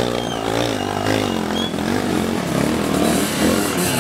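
Small motorcycle engine revving unevenly, its pitch rising and falling as the throttle is worked.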